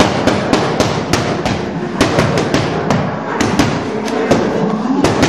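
Boxing gloves smacking into focus mitts in quick combinations, about twenty sharp pops with short pauses between the flurries.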